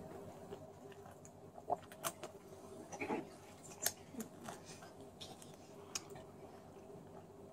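A man biting into and chewing a Nutella-spread orange slice: faint wet mouth sounds with scattered clicks and smacks, the loudest between about two and four seconds in.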